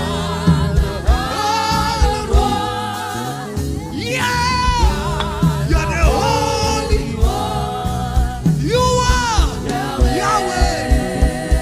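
Live gospel worship music: voices singing long, drawn-out notes over a band with bass and a steady beat of drum hits.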